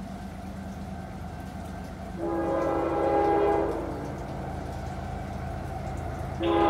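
CSX locomotive's air horn blowing as the train approaches: one blast of about a second and a half, starting about two seconds in, and a second blast starting near the end. Each blast is a chord of several steady tones, over a low steady rumble.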